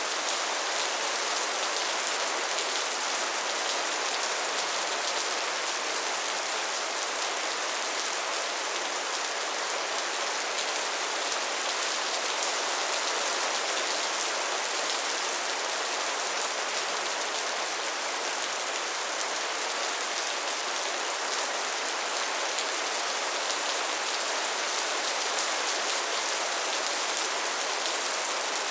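Steady soft rain falling, an even hiss with fine scattered patter of drops.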